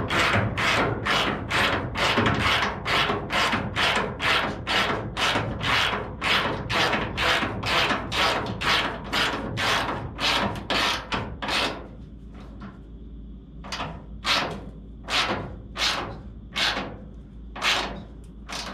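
A ratchet wrench running a fender bolt in with quick back-and-forth strokes, each one a short rasp of clicks, about two and a half a second. About two thirds of the way in the strokes slow to fewer, spaced ones as the bolt is snugged up.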